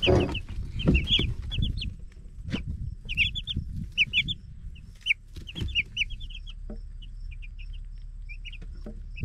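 Chicks peeping: many short, high, rising peeps, thick in the first couple of seconds and again about three to six seconds in, then thinning out. A few scattered knocks and a low rumble sound underneath.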